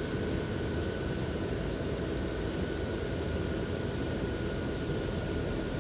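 Steady whir of the blower fans that keep a yard of inflatable Christmas decorations inflated, with a faint steady high whine.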